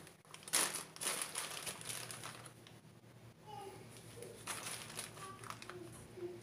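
A metal spoon stirring and scraping dry gram flour in a bowl, with a rough scraping spell from about half a second in and a shorter one near five seconds.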